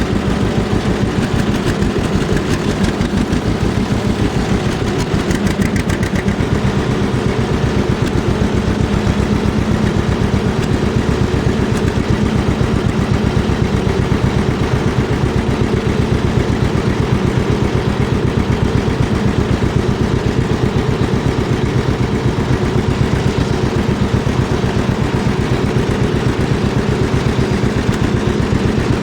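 Vintage tractor engine running steadily, with an even, rapid beat of firing pulses.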